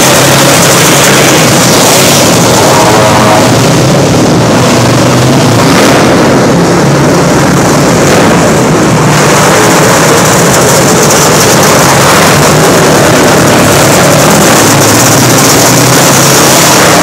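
Engines of several small winged sprint-style racing karts running on a dirt track, loud and continuous, with ATV engines among them, echoing under the arena roof.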